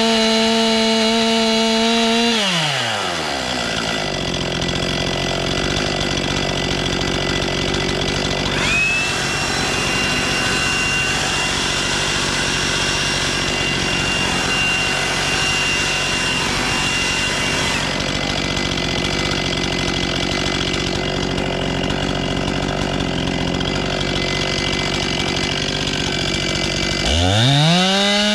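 Two-stroke chainsaw engine at high revs. The throttle is released about two seconds in, and the revs fall quickly to a steady idle. Near the end the saw is revved back up.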